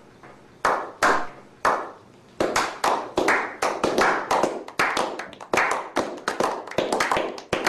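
A slow clap by a small group: three single hand claps about half a second apart, then about two and a half seconds in several people join with quicker, overlapping claps.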